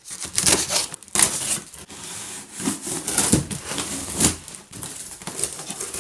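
A machete blade cutting through the plastic wrap and tape of a cardboard box, in irregular scraping strokes, with the wrap and cardboard crinkling as the box is opened.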